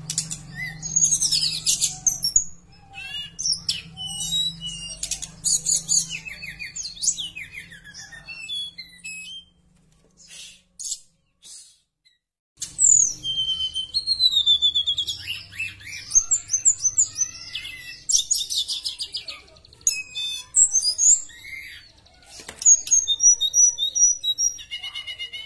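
Tledekan (blue flycatcher) singing a fast, varied song of gliding whistles, trills and chattering notes. The song breaks off for about three seconds in the middle, then starts again.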